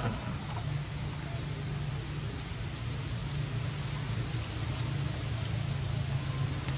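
Steady background ambience: a low hum with a constant high-pitched whine over it, and no distinct knocks or splashes.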